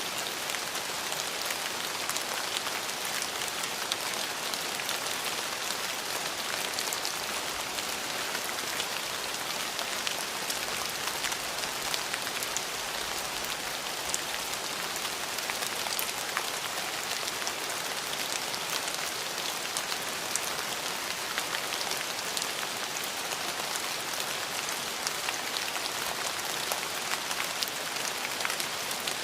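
Steady rain falling and pattering on a surface, with many small drop ticks scattered through an even hiss.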